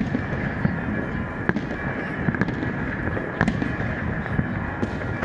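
Fireworks going off: irregular sharp bangs and crackles, roughly one every second, over a continuous dense din.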